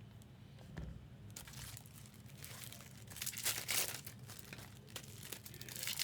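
Plastic wrapping being crinkled and torn open by hand as trading card boxes or packs are unwrapped. It starts after a quiet second with a soft knock, and is loudest about three to four seconds in.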